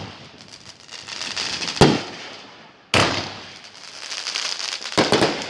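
Fireworks going off: three sharp bangs, roughly one to two seconds apart, the last one doubled, with crackling and hiss trailing between them.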